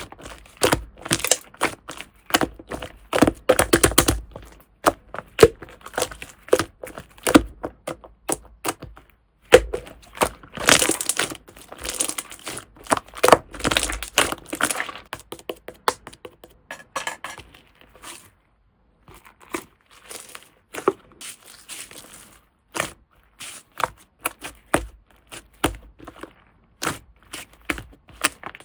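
Slime being squeezed, pressed and pulled by hand, giving a dense, irregular run of crackling clicks and pops, with a brief pause about two-thirds of the way through.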